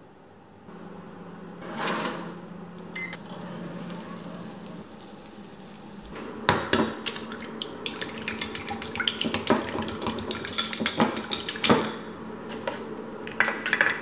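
Kitchen dishes and utensils clinking and clattering, in a dense run of quick clinks from about halfway, over a steady low appliance hum in the first few seconds.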